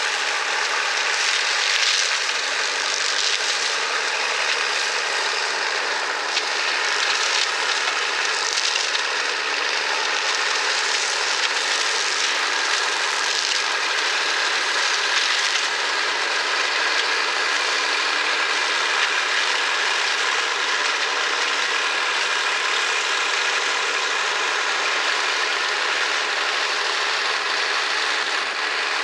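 A John Deere 3050 tractor's diesel engine running steadily under load while driving a hedge cutter whose flail head chops through hedge branches, giving a continuous engine drone mixed with rattling, crackling cutting noise.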